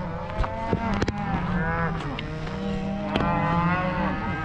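Several cattle mooing at once, long overlapping calls, over a low steady engine hum.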